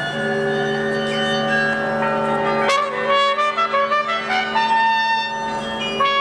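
Trumpet playing a melody together with a church carillon: bell tones ring under the trumpet, with long steady low notes held throughout and a fresh run of bell and trumpet notes starting about two and a half seconds in.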